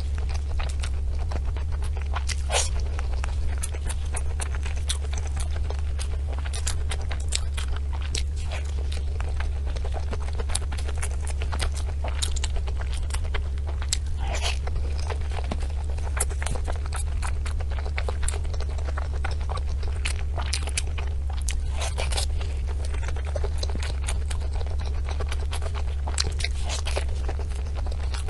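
Close-miked eating of colorful desserts: a continuous run of irregular crisp crunches and bites with chewing in between, over a steady low hum.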